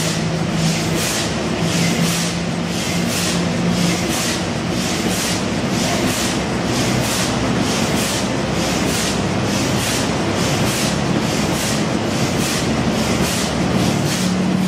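Burmeister & Wain eight-cylinder two-stroke diesel engine running: a steady low hum with a regular beat about twice a second.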